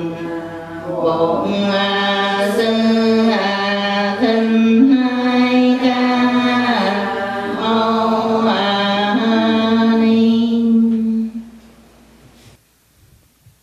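Slow Buddhist devotional chanting: voices hold long notes that step and glide gently in pitch, then stop about eleven seconds in.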